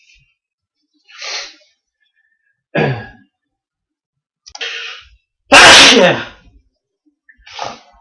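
A man sneezing in a natural sneezing fit: two sneezes, each after a sharp intake of breath, the second one the loudest, then a short sound near the end.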